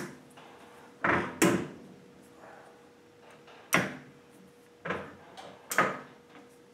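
Enco metal lathe's headstock gear-selector levers being shifted into the top speed range, with about six sharp metallic clunks and clicks spaced unevenly over several seconds as the gears engage, the chuck turned by hand near the end to help them mesh.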